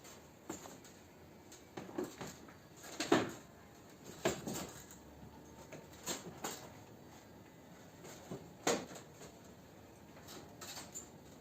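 Scattered knocks and clicks from fitting a car's bumper cover into place, the loudest about three seconds in, with others about four, six and nine seconds in.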